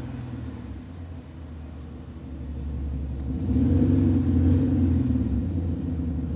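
Diesel Porsche with a Cargraphic Active Sound exhaust, its engine running with a deep, steady note. The note becomes much louder about three and a half seconds in.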